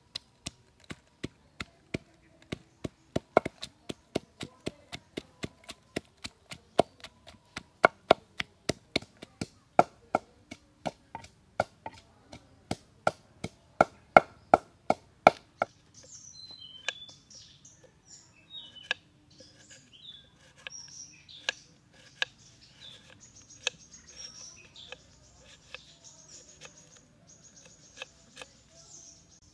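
Wooden pestle pounding chillies and garlic in a mortar, about three strikes a second for roughly fifteen seconds. After that come lighter knife strokes slicing onion on a chopping board, with birds chirping.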